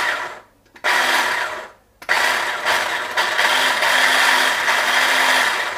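Orbit Triton electric mini chopper's motor and blades running in short pulses from its push button: the run winds down just after the start, the motor runs again for about a second, then again for about four seconds before cutting off.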